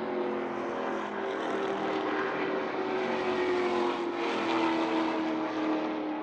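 Steady mechanical drone of a motor, one pitched hum with overtones that sinks slowly in pitch.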